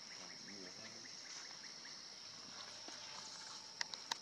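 Insects droning steadily at a high pitch, with two sharp clicks near the end.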